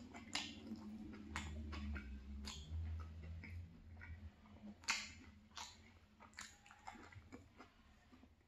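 A person chewing saucy fried chicken 65 close to the microphone, with irregular wet mouth clicks and smacks, the sharpest about five seconds in. A low hum sits under the chewing for the first few seconds.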